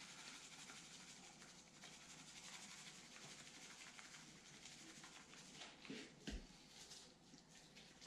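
Near silence with the faint patter of a hand-held seasoning shaker sprinkling a salt, pepper and garlic rub onto raw chicken wings, with a few soft taps a little past the middle.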